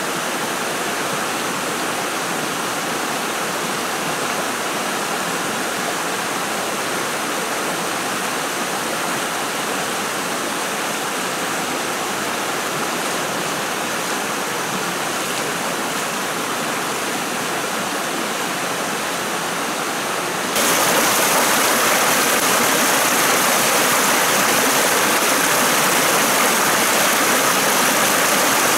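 Shallow stream rushing over rocks, a steady splashing rush of water. About two-thirds of the way through it jumps suddenly louder and hissier, as small cascades spilling over rock ledges take over.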